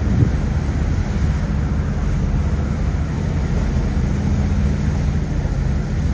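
Steady low engine drone of a vehicle under way, with a short bump just after the start.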